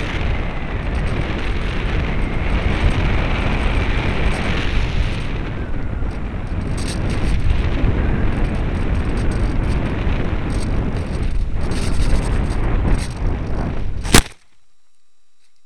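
Wind rushing and buffeting over the onboard camera of a gliding RC model plane that has lost its propeller, with scattered crackles. Near the end comes one sharp, very loud crash as the plane flies into a tree, after which there is only faint steady noise.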